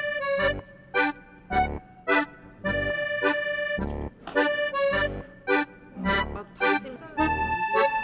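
Upbeat background music: short, bouncing chords over bass notes in a steady rhythm.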